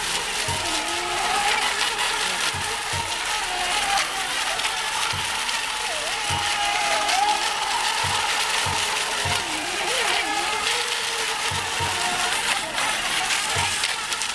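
Radio-controlled model racing boats running on the water, their motors making a whine that wavers and glides up and down in pitch over a steady rushing noise.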